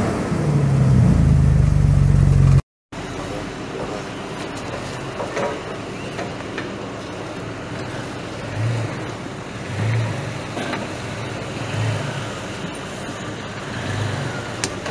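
A loud, steady logo sting for the first two and a half seconds, cut off abruptly. Then a Jeep Cherokee XJ's engine running at low speed, with short throttle blips every second or two, as the Jeep crawls up onto a large tyre obstacle.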